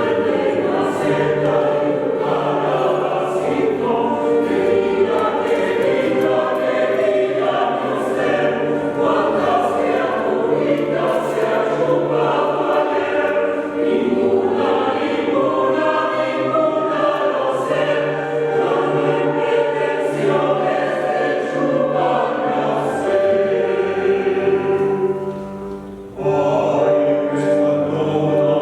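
Choir singing, many voices together; near the end the sound fades briefly and then the choir comes back in at full strength.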